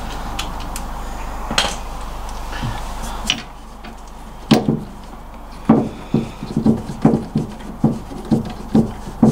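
Metal clicks and light knocks, about two a second from about four and a half seconds in, as a steel bolt is fed and turned by hand into the mounting of an MGB front lever arm damper. Before them a faint steady hum cuts off about three seconds in.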